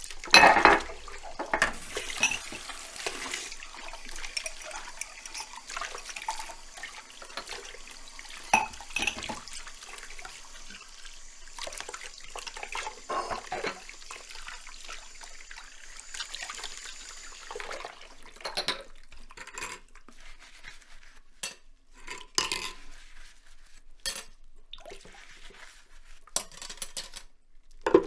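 Dishes being washed by hand in a sink: running tap water and splashing, with irregular clinks and knocks of dishes and cutlery, a loud knock about half a second in. The running water stops about two-thirds of the way through, leaving scattered clatter with short quiet gaps.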